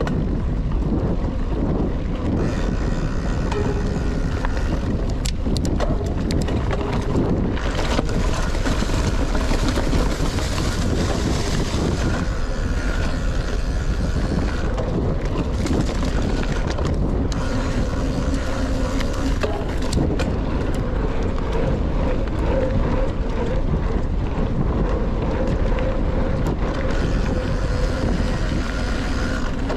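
Rockrider XC 900 mountain bike ridden fast down a forest trail: steady wind noise on the action camera's microphone over tyre rumble, with scattered clicks and rattles from the bike.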